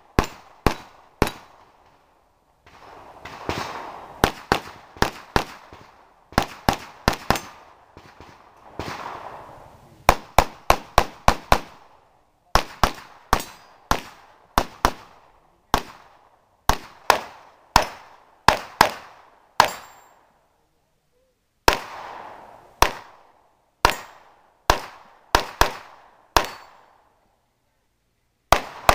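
Pistol shots fired in quick strings of several rapid cracks, with pauses of a second or so between strings.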